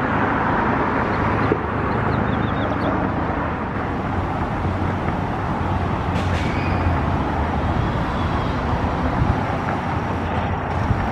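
Steady low rumble of outdoor traffic noise, with no clear single event standing out.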